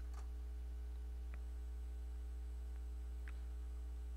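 Steady low electrical mains hum on the recording, with two or three faint short clicks.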